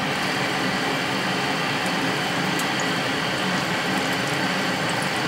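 Egg-dipped chicken pieces frying in hot oil in a karahi: a steady sizzle.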